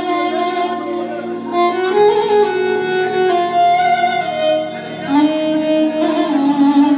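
Instrumental break in an Iraqi mawwal song: a violin-like lead melody playing long held and gliding notes over accompaniment, with no singing.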